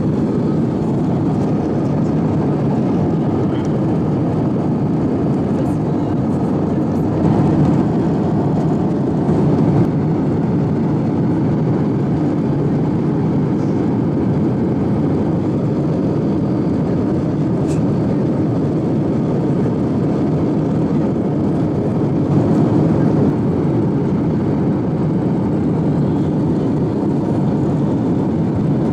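Airbus A350-900 cabin noise on final approach: a steady, deep rush of Rolls-Royce Trent XWB engines and airflow heard from a window seat, with a few brief swells.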